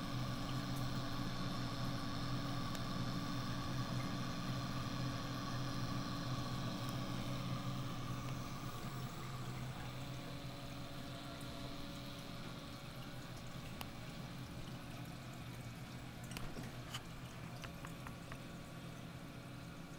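Steady hum of a reef aquarium's water pumps with water circulating, easing somewhat after the first several seconds, with a few faint clicks near the end.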